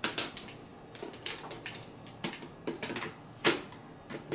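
Irregular clicks and light knocks from handling the cordless stick vacuum's filter and dust-cup parts, with one louder snap about three and a half seconds in.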